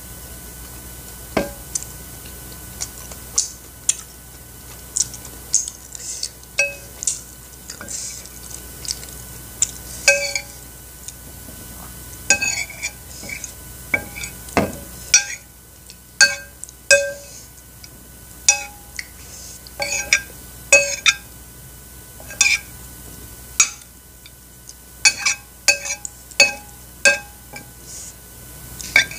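A metal spoon clinks and scrapes against a ceramic plate as it scoops rice cakes and sauce: irregular light clinks, about one a second, each ringing briefly.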